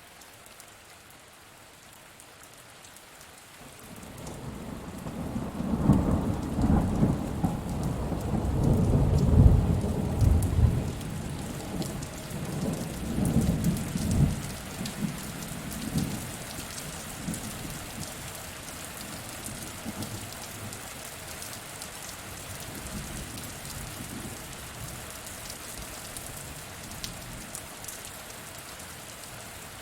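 Steady rain falling, with a long rumble of thunder that builds from about four seconds in, is loudest around ten seconds in, and dies away a few seconds later while the rain goes on.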